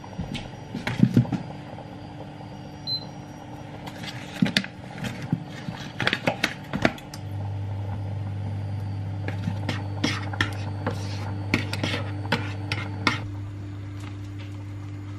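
Kitchen handling sounds as butter is unwrapped from its foil and cut with a knife into a non-stick frying pan: foil rustling and knife and pan taps and clicks. About seven seconds in, a steady low hum starts and runs on under the sparser taps.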